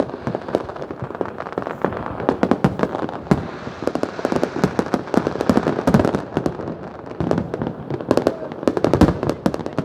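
Fireworks going off in a rapid, continuous barrage of overlapping bangs and crackles, with the biggest bursts about six and nine seconds in.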